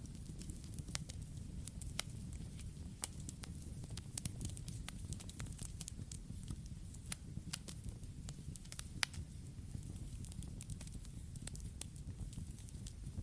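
Campfire burning: a steady low rumble of flames with many sharp, irregular crackles and pops from the burning wood.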